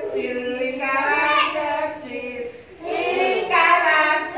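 Young children singing a song together, with long held notes in two phrases and a short break between them.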